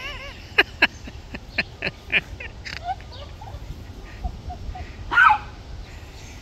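Small dog yipping while chasing hose spray: a quick run of about eight short barks over the first three seconds, then one louder bark about five seconds in.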